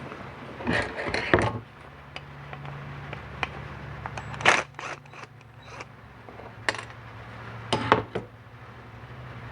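Metal clinks and scrapes from hand tools and parts as a pipe is worked out of a Tuned Port Injection fuel rail, in scattered short knocks with louder ones about a second in, halfway through and near the end, over a steady low hum.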